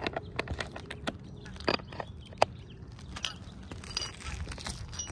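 Scattered light clicks and knocks from handling work on an asphalt shingle roof around metal roof-mount flashings, with a few faint high chirps about four seconds in.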